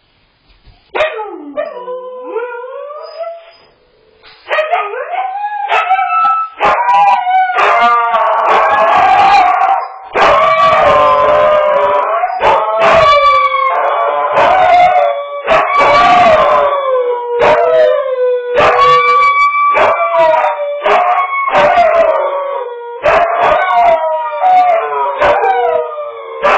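Two Siberian huskies howling together, picked up by a home security camera's microphone. Short gliding calls start about a second in. From about four seconds the two voices overlap in long, wavering howls that run almost without a break.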